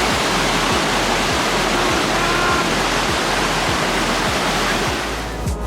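Waterfall rushing, a steady heavy roar of falling water that fades out near the end. A faint beat of background music runs under it and comes up as the water sound fades.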